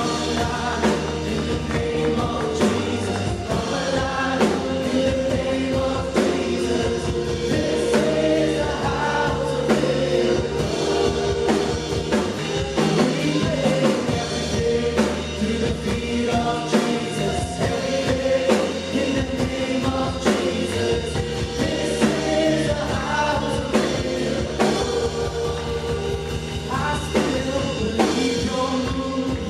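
Live worship band playing a gospel song with a group of singers, over steady bass and drums.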